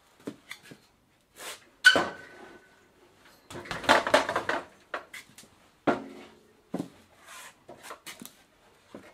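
Metal clanks and rattles of a bicycle being flipped upright and set down on its kickstand. There is a sharp clank with a brief ring about two seconds in, a burst of rattling around four seconds, then scattered lighter knocks.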